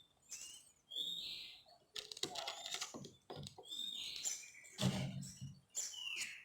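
Young spotted dove chick giving short, high, squeaky begging calls about four times, some falling in pitch. Knocks and rustling from handling come in between.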